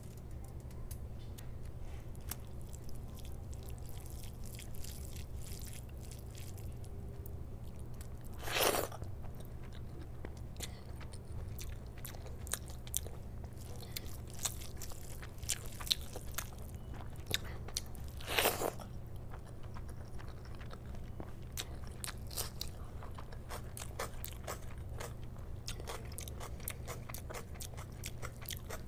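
Close-miked eating sounds: a hand squishing rice and curry gravy together, and chewing, made of many small wet clicks. Two louder crunchy bursts come about nine and eighteen seconds in, over a steady low hum.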